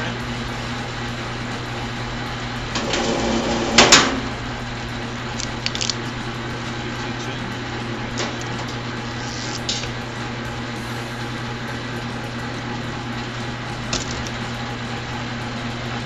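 Electric wire stripping machine (BLUEROCK Model 945 Stripinator, 3 HP single-phase motor with gear and belt drive) running with a steady hum. A length of 3 AWG stranded copper THHN wire passes through its cutters and rollers about three seconds in, a louder rattle ending in a sharp clack, followed by a few lighter clicks.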